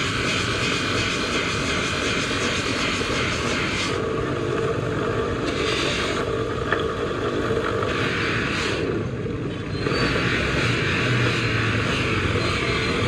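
A motor running steadily, with a hissing noise that comes and goes several times over it.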